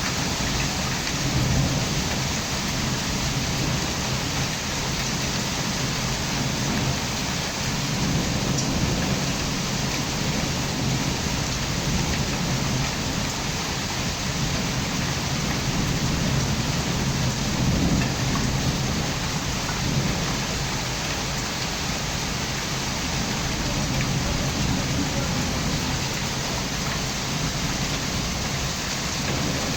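Heavy rain falling steadily, with low rumbles swelling up now and then.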